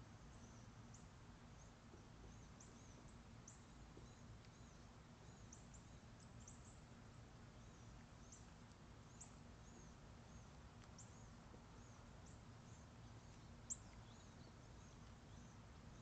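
Faint, high, thin bird chirps repeating at irregular intervals over a low steady background hum, with a single sharp click about 14 seconds in.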